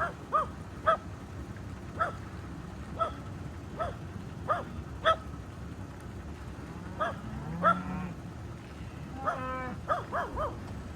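Short animal calls repeating roughly once a second, with a lower, longer call about eight seconds in and another longer call near the end.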